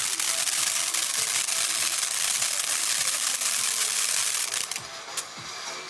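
Ground fountain firework spraying sparks: a steady hiss thick with fine crackling. About four and a half seconds in it turns sharply quieter, with one sharp crack just after.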